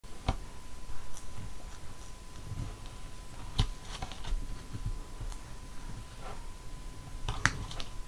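Wooden spoons scooping ice cream and syrupy strawberries in a clear plastic bowl of strawberry shaved ice: soft scrapes and light clicks of wood on plastic. Three sharper clicks stand out, near the start, in the middle and near the end.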